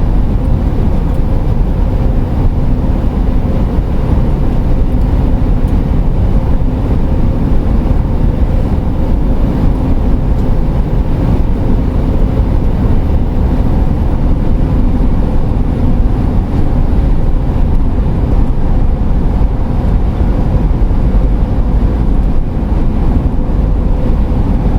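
Steady road and engine noise inside a moving camper van's cabin: a continuous low rumble with a faint steady hum, unchanging throughout.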